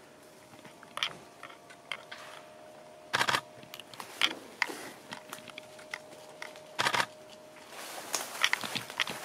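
Camera shutter firing twice, about three and a half seconds apart, amid scattered small crunching clicks that grow denser near the end, over a faint steady hum.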